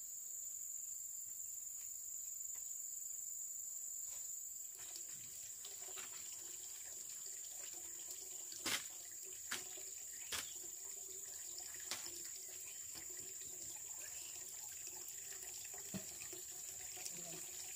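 Water running steadily, as from a tap or pipe, starting about five seconds in, with several sharp clicks or knocks. A steady high-pitched insect buzz runs underneath throughout.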